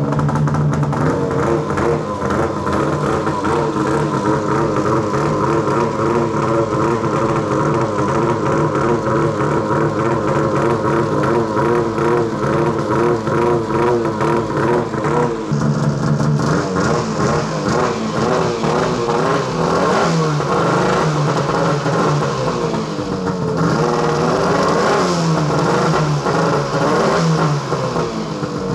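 Arctic Cat snowmobile's two-stroke engine, warm and running on a stand, revved up and down again and again as the throttle is worked to load the engine and check that the clutches shift. From about halfway through, a hissier, harsher sound joins the engine.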